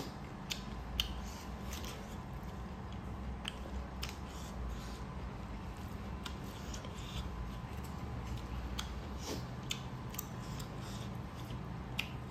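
Close-up eating sounds of two people eating rice and chicken curry with their hands: irregular wet mouth clicks and chewing, with soft squelches of fingers working the rice, over a low steady hum.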